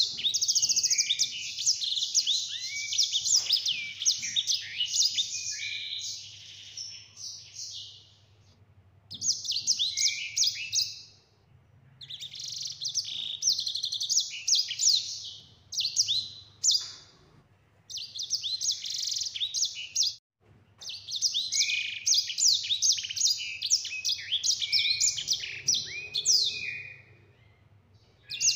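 Caged sanger, a grey singing finch, singing long, rapid rolling runs of high twittering notes. The song comes in several bursts with short pauses between them.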